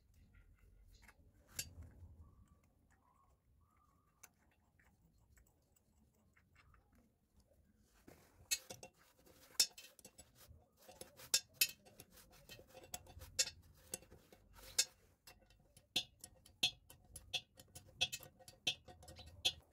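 Small metal fittings being handled and worked under a ceramic washbasin: a few faint clicks at first, then from about halfway irregular sharp clicks and taps, one or two a second.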